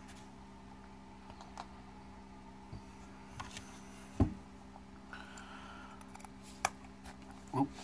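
Scattered light clicks and taps of a small red-handled hex driver and an RC crawler wheel and tire being handled, with one louder knock about four seconds in and another short knock near the end. A steady low hum runs underneath.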